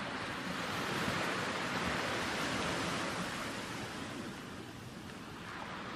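Steady rushing outdoor noise, like surf or wind, easing a little after the middle.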